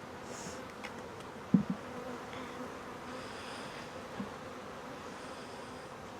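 Honey bees buzzing steadily around an opened hive, a constant hum. Two short low knocks come about a second and a half in, and a smaller one near four seconds.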